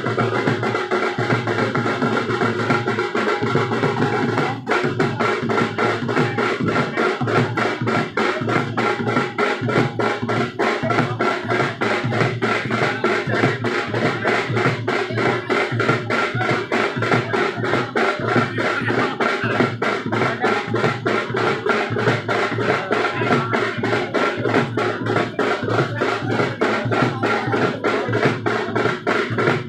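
Music with fast, steady drumming and a sustained pitched part over the beat, running without a break.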